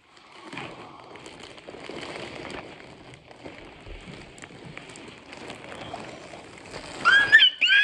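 Thin plastic mailer bag crinkling and rustling as it is pulled and torn open by hand. About seven seconds in, a loud high-pitched excited squeal from a woman's voice, held briefly.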